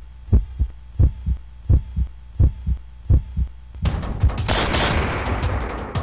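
Heartbeat sound effect from the soundtrack: low double thumps, about one pair every 0.7 seconds. About four seconds in a loud rush of noise with rapid sharp cracks comes in and fades toward the end.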